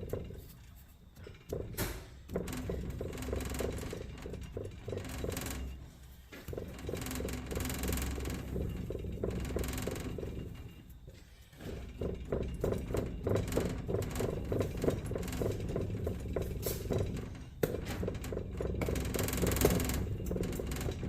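Molding sand being worked into a casting flask by hand: runs of quick rhythmic scraping and rattling strokes, several a second, broken by short pauses.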